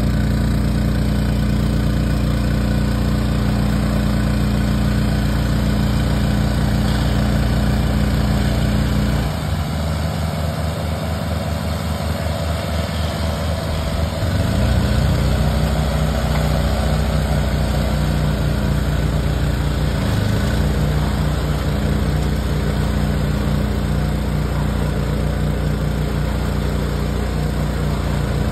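Engines of a tractor and an in-line round-bale wrapper running steadily while bales are loaded and wrapped. The deep engine tone drops away suddenly about a third of the way in and comes back with a rising pitch about halfway through.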